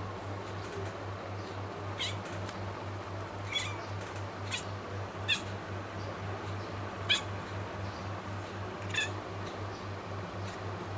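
Bengal kitten making about six short, high chirping calls at irregular intervals, the cat's typical excited chatter at birds it is watching, over a steady low hum.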